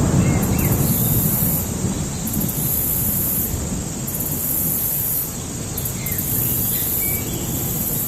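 Forest ambience with a low rumble of distant thunder, loudest at the start and fading. Over it, an insect buzz switches on and off about every two seconds, and a few short bird chirps come through.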